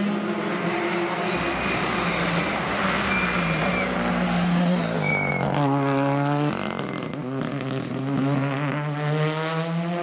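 Rally car engines running hard at high revs as the cars go past on the stage, among them a Ford Fiesta rally car. The engine pitch drops about halfway through and then climbs again towards the end.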